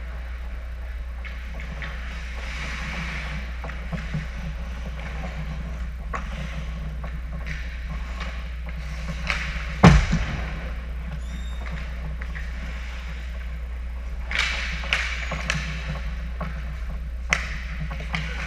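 Ice hockey play on an indoor rink: skates scraping the ice, with stick and puck clacks, and a loud thud about ten seconds in as the goalie drops into a butterfly save. A few more sharp clacks come near the end as players crowd the net, over a steady low hum.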